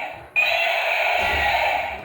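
A toy's electronic sound effect played through its small speaker, looping. The sound starts sharply about a third of a second in, holds steady for about a second and a half, and fades out near the end.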